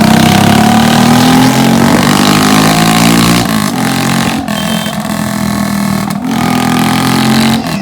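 Motorcycle engine with a newly fitted aftermarket silencer, loud and revving. Its note rises over the first two seconds, drops about three and a half seconds in, then runs on with a few brief dips.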